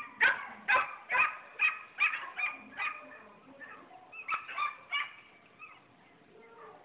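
Border collie barking in a steady series of short barks, about two a second, growing fainter and stopping about five seconds in.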